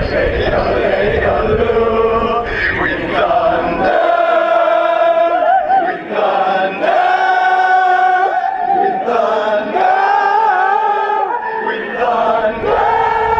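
A large crowd of voices yodeling together in unison, long held notes that jump to a new pitch every second or two. The first few seconds are mixed with crowd shouting.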